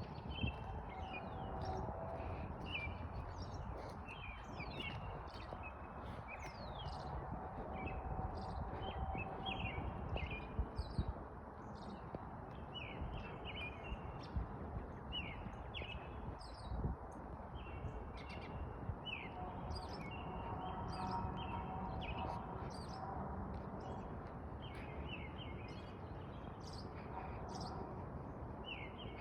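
Small songbirds chirping in quick, repeated short notes throughout, over a steady low rumble of background noise.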